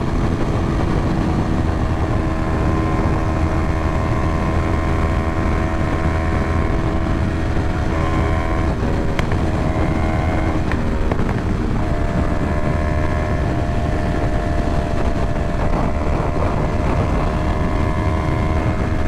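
Yamaha R3's parallel-twin engine running steadily at highway cruising speed, heard from the rider's helmet with wind rushing over the microphone. The engine note fades and wavers briefly from about eight seconds in, with a couple of clicks, then settles steady again around twelve seconds.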